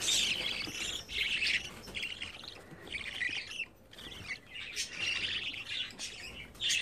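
Baby budgerigar chicks chirping: a steady run of short, high cheeps at feeding time.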